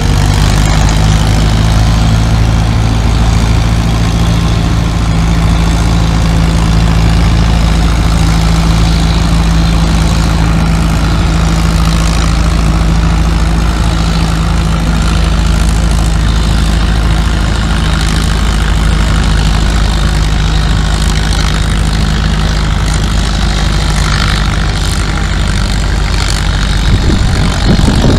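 Tractor engine running at a steady speed: a loud, even engine drone that holds the same pitch throughout, with no revving.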